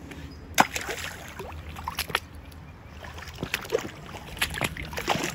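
Hands rummaging through stones and geodes in a shallow creek bed: water sloshing, with about ten sharp knocks of rock against rock scattered through.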